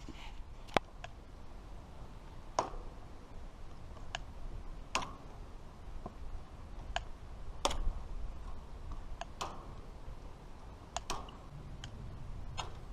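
Scattered sharp clicks, about a dozen at uneven spacing, roughly one every second or two, over a faint low background hum.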